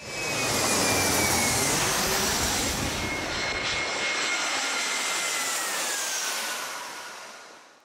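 Twin-engine jet airliner on final approach flying away toward touchdown: a steady jet engine rush with a thin high whine that slowly falls in pitch. It fades out near the end.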